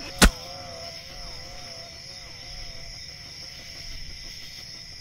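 Crickets chirring steadily at a high pitch, with a single sharp crack just after the start. A wavering tone fades out over the first couple of seconds.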